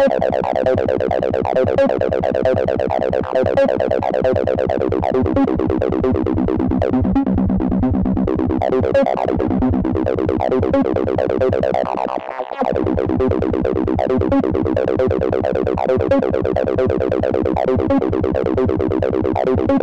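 Acid bassline from a Serum synth patch imitating the Roland TB-303: a sawtooth sequence through a resonant filter with tube distortion, ping-pong delay and reverb, with note velocity driving the filter cutoff. It plays as a fast repeating pattern of notes, with a brief break about twelve seconds in.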